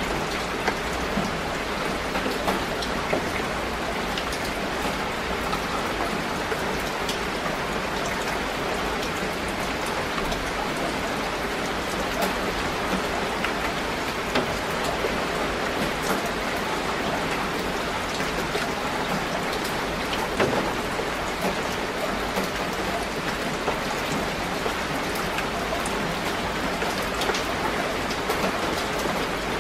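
Steady rain falling on broad leaves and garden plants: a dense, even hiss with frequent sharp ticks of single drops landing close by.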